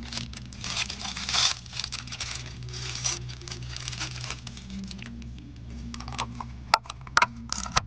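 Thin plastic wrapper crinkling and tearing as a disposable plastic spoon is unwrapped, followed by a few sharp clicks of plastic being handled near the end.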